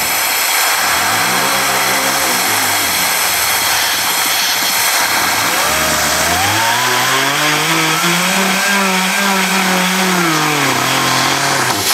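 Compressed air at about 75 PSI hissing through a small 3D-printed air turbine coupled to a 6-volt motor used as a generator, the air cutting off suddenly near the end. Under the hiss the turbine and motor whine rises and falls in pitch twice, briefly near the start and for longer from about six seconds in; the coupler between turbine and motor is not fully balanced, so it is hard to hold it at high revs.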